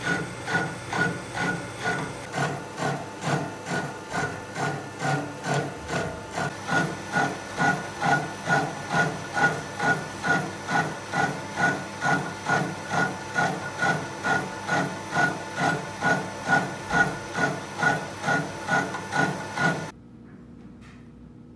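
Sheldon Vernon horizontal mill's milling cutter on its arbor cutting a metal bar, a steady rhythmic chatter pulsing about twice a second: the cutter does not engage all its teeth evenly around each turn, which the owner puts down to a slightly bent arbor. About twenty seconds in it cuts off suddenly to a quieter steady hum.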